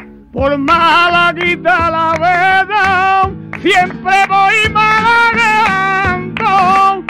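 A male flamenco singer comes in about half a second in, singing tangos de Málaga in long, ornamented lines with a wavering vibrato. Flamenco guitar accompanies him underneath.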